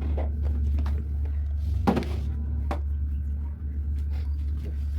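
Two short knocks, a bit under a second apart, over a steady low hum.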